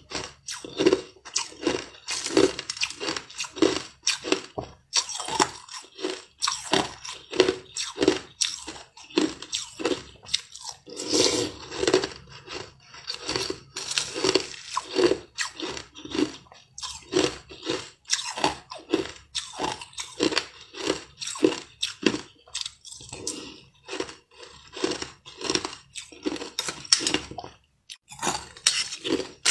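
Close-up chewing and crunching of a mouthful of flavoured frozen ice, about two crunches a second, with a few short pauses.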